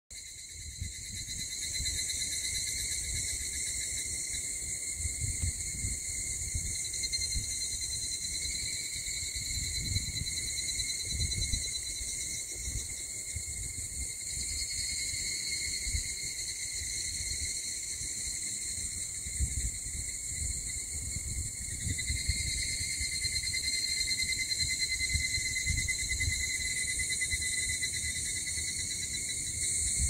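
A dense chorus of cicadas singing steadily, with low rumbling on the microphone underneath.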